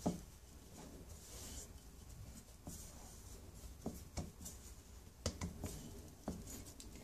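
Hands mixing and pressing pie dough in a mixing bowl, faint: soft rustling with a few short, irregular knocks as the hands and dough hit the side of the bowl.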